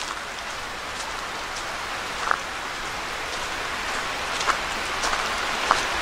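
Steady rushing hiss of a flowing creek, with a few faint ticks.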